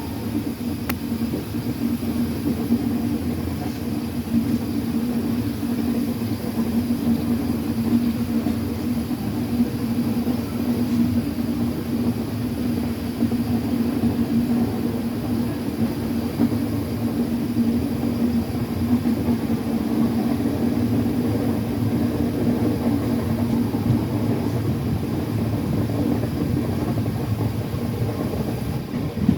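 Train running steadily: a continuous rumble with a constant low hum, the hum fading a few seconds before the end.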